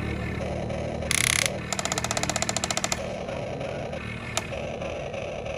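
Electric motors of a Huina remote-control toy excavator whirring as its arm and bucket work into dirt. A short scrape comes a little after a second in, then about a second of rapid, even clicking, and a single click near the end.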